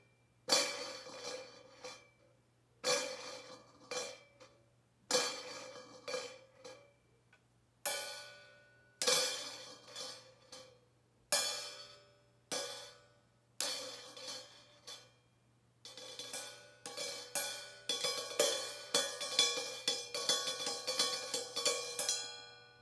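Meinl cymbal struck with wooden drumsticks: single strikes every second or two, each one ringing out and fading, then quicker, denser playing over the last six seconds that rings off just before the end. A faint steady hum runs underneath.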